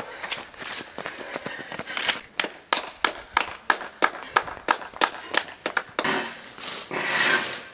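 Running footsteps of a runner's shoes slapping on an asphalt road, about three strides a second, growing louder as she comes up close and passes. A louder rush of noise follows near the end.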